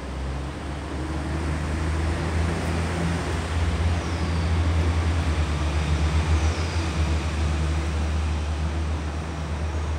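Low engine hum of a motor vehicle, swelling to its loudest about the middle and easing off. Three short high chirps, each falling in pitch, sound over it.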